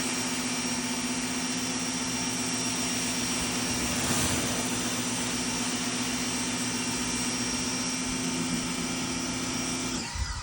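Greenworks 1900 PSI electric pressure washer running with the trigger held, its motor and pump humming steadily under the hiss of the spray from the turbo nozzle. It cuts off suddenly near the end.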